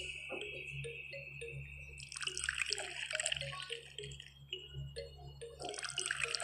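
Water poured from a small tin bucket into a small clay pot, splashing in about two seconds in and dribbling off, then a second pour starting near the end.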